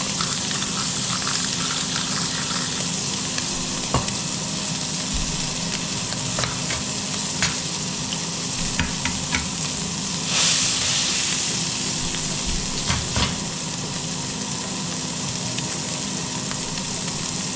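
Beef burger patty frying in a pan: a steady sizzle with scattered pops and crackles of fat, and a brief louder hiss a little past halfway.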